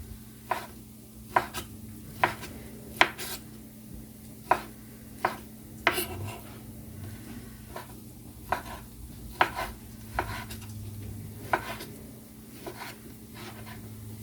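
Knife cutting a partly frozen chicken breast into pieces, striking the cutting board in sharp, uneven strokes about once a second.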